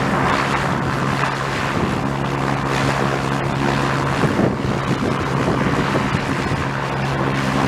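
Propeller aircraft running at a steady pitch, with wind noise on the microphone.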